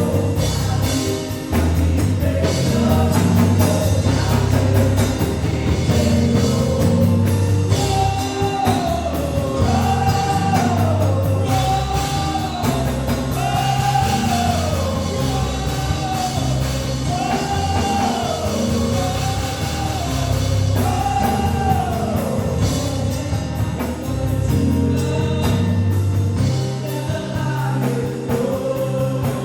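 Live gospel worship music: a band with bass and drums playing while singers repeat short arching sung phrases.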